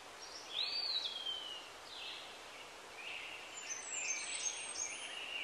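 Birds calling over a steady faint hiss of outdoor ambience. A clear slurred whistle rises and then falls about half a second in, and a busier run of chirps follows from about three seconds on.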